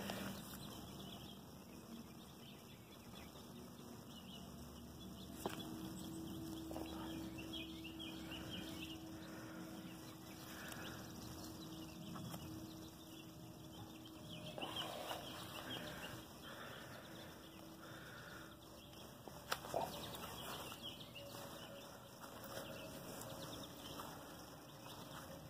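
Faint rustling of pepper plant leaves being brushed and handled, with a steady low hum through the middle and a couple of sharp clicks.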